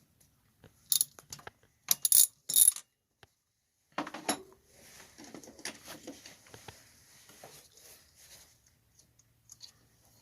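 Metal hand tools clinking and scraping against the valve adjusters of a Honda 300EX engine. A few sharp clinks come in the first three seconds, a louder knock about four seconds in, then light scraping and ticking.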